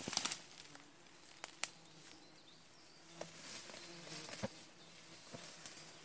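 Grass and leaves rustling as someone pushes through dense undergrowth, loudest right at the start, with a few sharp ticks of stems snapping. A faint on-and-off buzz of flying insects runs underneath.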